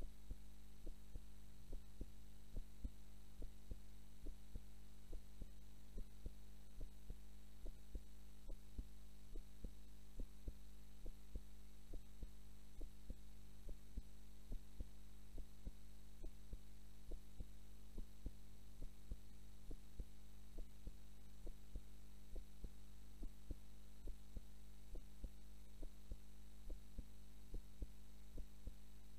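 A woman's heartbeat heard close up while she naps, beating in a steady, even rhythm over a constant low electrical hum.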